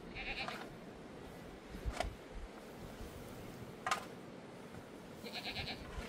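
Livestock bleating twice, short quavering calls near the start and near the end. Between them, two sharp knocks of a shovel blade striking the ground, the loudest sounds.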